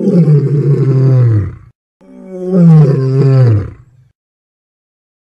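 Lion roaring twice, each roar under two seconds long and sliding down in pitch, the second starting about two seconds in; each one cuts in and out abruptly.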